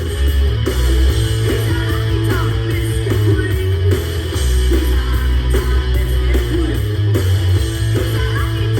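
Rock song playing: electric guitars and a heavy bass end, with a steady loud mix throughout.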